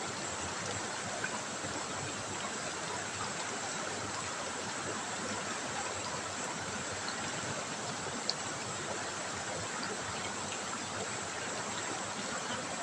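River water trickling and rushing steadily over stones, an even hiss with a couple of faint brief ticks.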